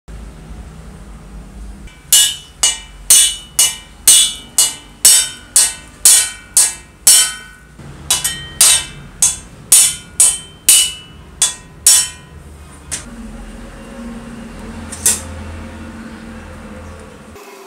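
Hammer tapping the spindle and bearing down into a circular saw's aluminium gear housing: about twenty sharp, ringing metal strikes, about two a second, with a short pause midway. Two lone clicks follow near the end.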